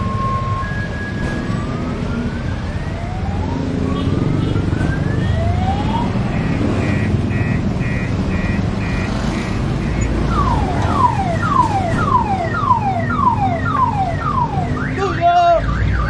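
Electronic car alarm cycling through its tone patterns over a steady rumble of street noise. It goes from an alternating two-tone wail to slow rising whoops, then rapid chirps, then quick falling sweeps about two a second.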